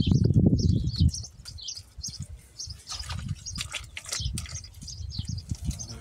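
Small birds chirping and twittering in quick, repeated short calls, over a low rumble and dull thuds that are loudest in the first second.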